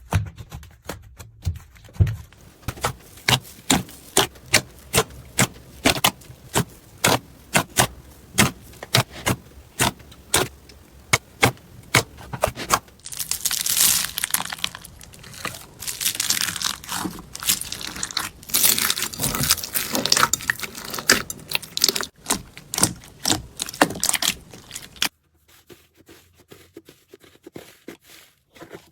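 Slime being squeezed and pressed by hand, giving many sharp clicks and pops about two a second, with longer stretches of dense crackling in the middle; it turns quieter and sparser near the end.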